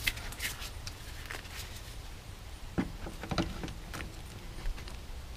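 Scattered light clicks and taps of metal pliers being handled and gripping at the fuel-line fitting on a small engine's gas tank.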